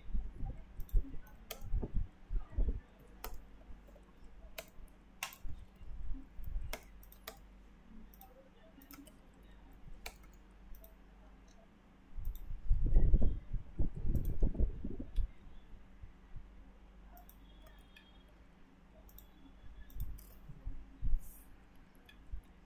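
Computer mouse clicks and keyboard keystrokes, scattered and irregular, over a faint steady hum. About halfway through comes a few seconds of louder, low, muffled thumping.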